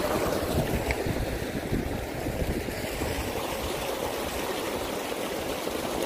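Stream water pouring over a low rock ledge in a small waterfall: a steady rushing splash.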